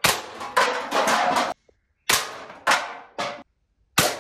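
Toy AK-47 soft-bullet blaster firing about half a dozen sharp shots in uneven bursts, each with a short decaying tail, as the target cans are hit and knocked over.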